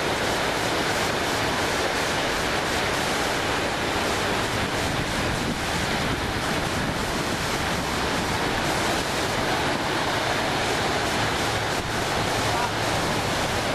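Small surf washing onto a sandy beach, a steady rush with no distinct breaks, mixed with wind noise on the microphone.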